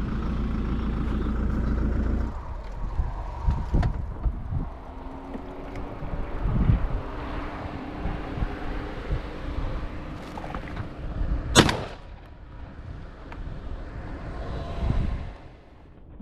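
Motor vehicle running with a steady low rumble, then rattling noise as it moves. A single sharp, loud bang comes about eleven and a half seconds in.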